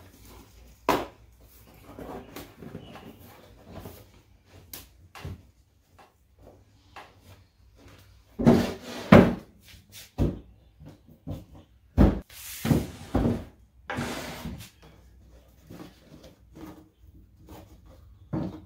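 Wooden dresser drawer being handled and turned over on a workbench while its hardboard bottom is worked back into its groove: a series of wooden knocks and thumps, the loudest bunched in the middle.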